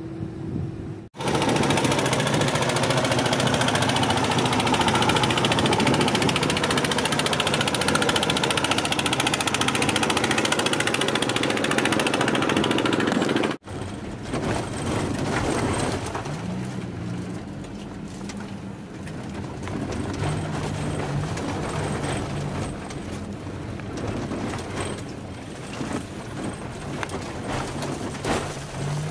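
A loud, steady rushing hiss that cuts off suddenly about halfway through. Then comes the steady road and engine noise of a car driving on a rural road, heard from inside the cabin.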